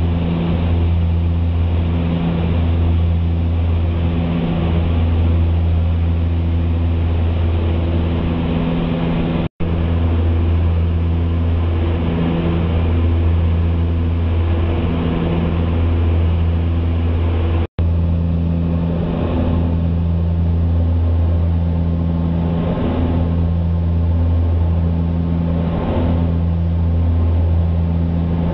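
Cabin noise of a small twin-turboprop airliner in flight: a loud, steady low propeller and engine drone with a slow, regular throb, over a hiss of airflow. The sound cuts out for an instant twice.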